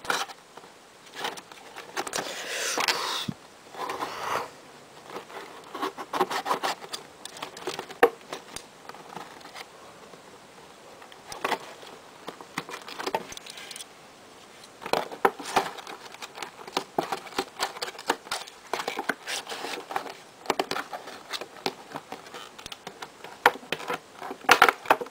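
Hands handling and prying at a cardboard toy box to open it: irregular scraping, tapping and rustling of the cardboard, with a longer scrape about two seconds in.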